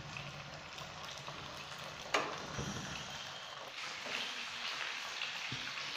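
Fish pieces shallow-frying in hot oil in a nonstick pan: a soft, steady sizzle with fine crackling, and a single sharp knock about two seconds in.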